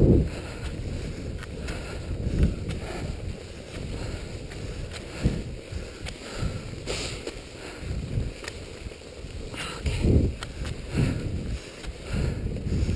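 Wind rumbling on the microphone while the skier glides along, with skis swishing over snow and an irregular louder swish every second or two.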